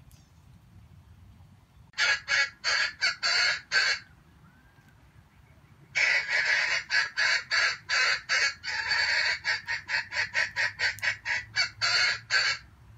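Red junglefowl cackling: two runs of rapid, harsh repeated notes, a short run of about six near the start and a longer run of several seconds from about the middle.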